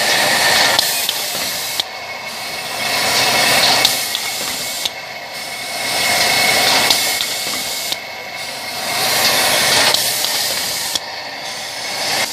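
PVC refrigerator door gasket extrusion line running: a loud hiss that swells and fades in a regular cycle, with a sharp mechanical click about every three seconds.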